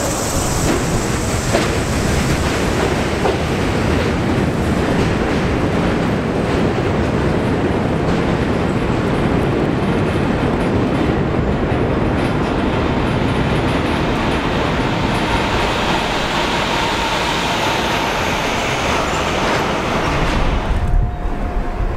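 An R42 subway train running out along an elevated steel structure, a steady heavy rumble and clatter of wheels on rail that thins out near the end as the train draws away. A faint high wheel squeal sounds in the later part.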